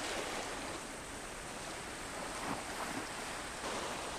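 Small lake waves washing against a rocky shore: a steady, even hiss of water.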